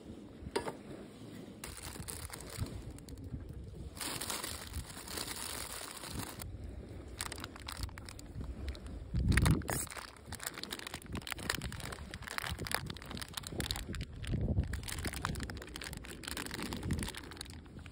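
Plastic food packets crinkling and rustling as shimeji mushrooms and bacon are handled and dropped into an aluminium mess tin, with a dull knock about halfway through.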